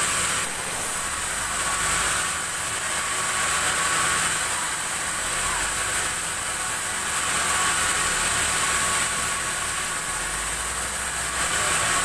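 Sawmill band saw running steadily between cuts, a hiss and high whine from the blade over a steady low motor hum.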